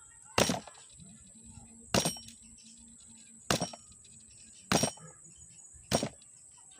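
Five sharp metal-on-metal taps, one every second and a half or so, each with a short ring, while an electric fan motor's shaft bushing is being worked into place.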